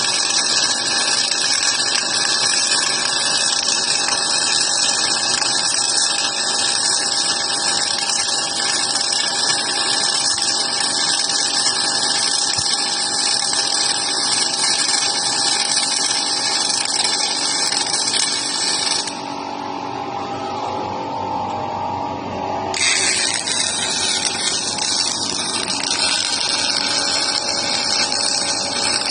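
Robotic arc welding on steel: the arc crackling and sizzling steadily, stopping for a few seconds about two thirds of the way through and then striking again for the next weld.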